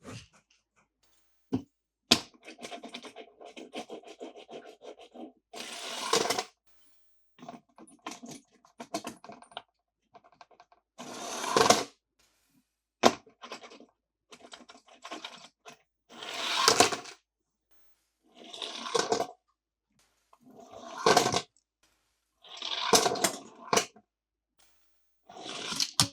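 A series of separate scraping and tearing sounds, each about a second long and several swelling to a sharp end, with a stretch of small rattling clicks early on, from toy cars and their plastic and cardboard packaging being handled.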